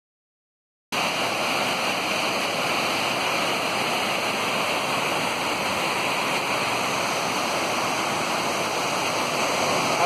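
Waterfalls: water pouring over a low rock ledge and a larger fall behind it, a steady rush of falling water that starts suddenly about a second in.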